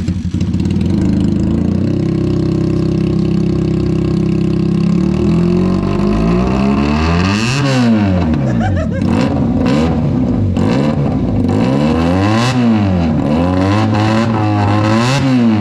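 Benelli TNT 300 parallel-twin engine with an Ixil aftermarket exhaust fitted without its dB killer. It fires up at the start, idles steadily for about five seconds, then is revved hard three times with smaller blips between, each rev rising and falling in pitch. The exhaust note is raspy.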